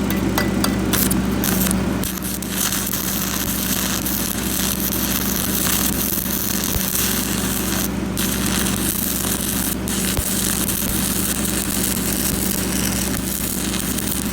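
Arc welding: a continuous crackling hiss over the steady low hum of the welding machine, with a few sharp pops in the first two seconds.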